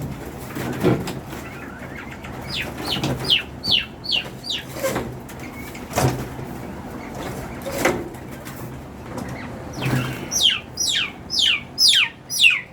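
Captive quail calling in runs of short, high chirps, each falling in pitch, several a second, in two bursts about two seconds apart. A few sharp knocks come in between.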